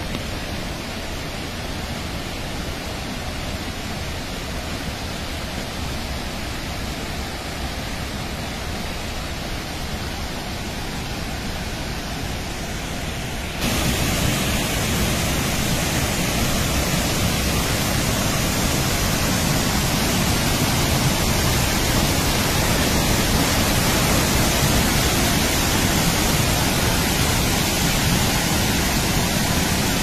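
A wide waterfall in full flood gives a steady, dense rush of pouring water. A little under halfway through, the rush jumps louder and brighter, heard from close to the falls.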